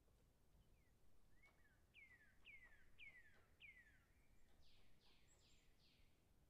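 Faint bird song over near silence: a run of four falling notes about half a second apart, then four higher falling notes.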